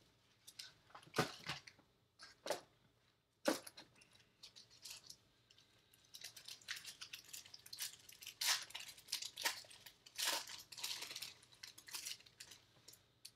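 Bowman 2020 Mega Box and its foil card packs being torn open and crinkled: a few separate sharp rips and clicks, then dense rustling about halfway through.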